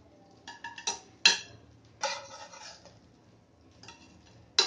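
Spatula knocking and scraping against a frying pan and a ceramic plate as pieces of egg-topped bread are lifted onto the plate: a few sharp clinks, the loudest about a second in and another near the end, with a short scrape around two seconds in.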